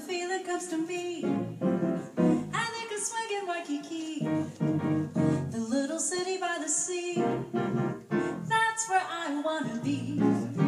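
Live jazz combo playing a song: grand piano and upright double bass, with a woman singing over them.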